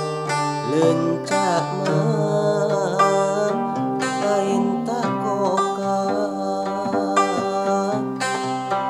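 Kacapi, the Sundanese plucked zither, played in a running accompaniment of plucked notes. A man sings a drawn-out, ornamented line of a Sundanese song over it, with its pitch sliding and wavering in the first few seconds and again near the middle.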